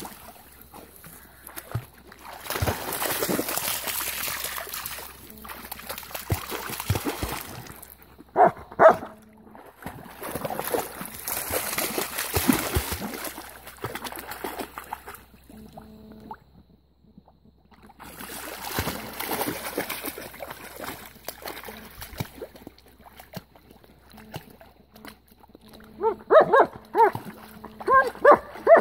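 Dogs splashing and wading through a shallow muddy pond, the water sloshing in several bouts. A dog gives a short bark about nine seconds in, and near the end a quick run of short barks and yelps.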